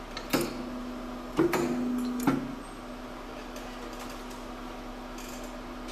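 Fastener installation press cycling over its steady low hum: a sharp clack, then about a second later a loud click as the stroke starts, a louder hum for under a second while it presses, and a second clack as it releases.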